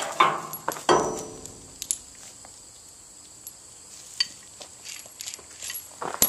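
Steel hand tools and bolt hardware clinking and scraping as a wrench works a 5/8-inch A325 bolt out of a Skidmore bolt-tension calibrator. The loudest clatter comes in the first second, followed by scattered single clinks and a sharp clink near the end.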